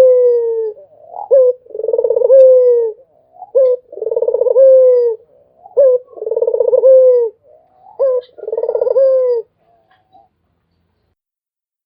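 Ringneck dove (puter) cooing: the end of one call and then four more, each a short rising note followed by a long buzzy, pulsed coo that sinks slightly, repeated about every two and a half seconds and stopping about ten seconds in.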